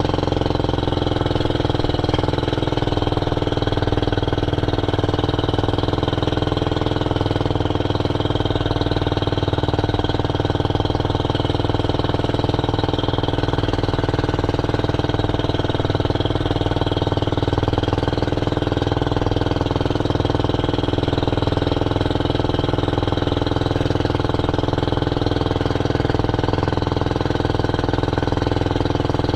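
A small boat's engine running steadily at constant speed, an even drone that does not change.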